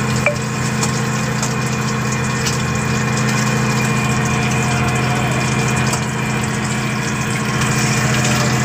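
A boat engine running steadily with a constant low hum, over the fine crackle and sizzle of fish bajji deep-frying in hot oil in an aluminium kadai.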